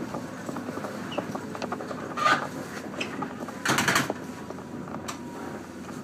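Cabin running noise of a 115-series electric train: a steady rumble with light rail clicks, broken by two short, louder bursts of noise about two and four seconds in.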